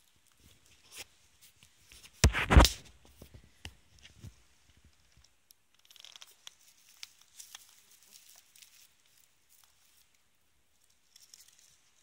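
Crunching and rustling of dry lichen and pine needles on a forest floor, with one loud, crackly rustle about two seconds in. After that, fingers rustle and crackle through the needles and lichen, and near the end there is more rustling as a matsutake mushroom is pulled out of the ground.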